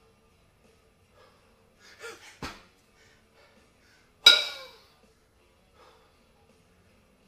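Kettlebell jerks with a pair of 22 kg kettlebells: a short breathy exhale and a sharp thud about two seconds in as the bells are driven overhead, then a loud metallic clang that rings on briefly about four seconds in as the two bells drop back into the rack and knock together.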